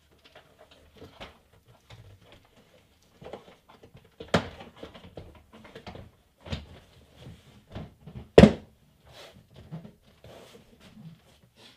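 Plastic clips of a BMW F30 front door trim panel clicking and knocking into place as the panel is pressed and struck by hand onto the door, with a scatter of small clicks and rustles and two loud thumps about four and eight and a half seconds in.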